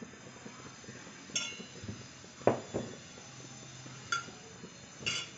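Metal bowls clinking and knocking as rice flour is tipped from one into another and worked by hand into soaked sago pearls: a few short ringing clinks and a couple of dull knocks.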